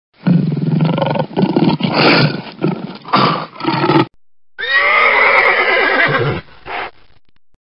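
Animal sound effects: a pulsing animal call for about the first four seconds, then a horse whinnying for about a second and a half, followed by a short lower call.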